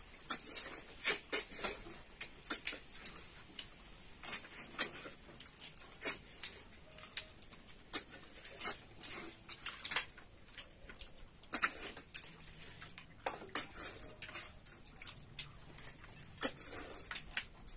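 Irregular short, sharp sucking and slurping sounds with light clicks, a few a second, as cooked snails are eaten by hand and sucked from their shells.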